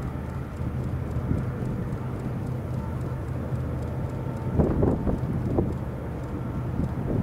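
Steady low drone of distant Union Pacific diesel locomotives approaching, with wind buffeting the microphone in gusts about halfway through.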